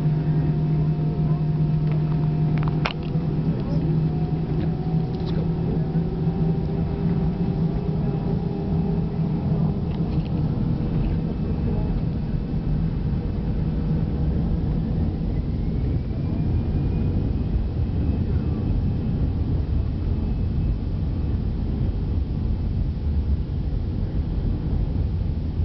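Jet airliner engines heard from inside the cabin over the wing: a steady low rumble and hum, with a whine rising in pitch about halfway through as the engines spool up for takeoff.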